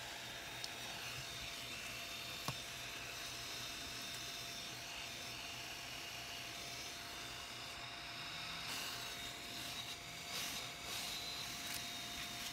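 A faint steady hiss with a thin high tone under it, a single sharp click about two and a half seconds in, then, from about two-thirds of the way through, uneven rustling and light knocks of hands handling small electronic parts and plastic packaging.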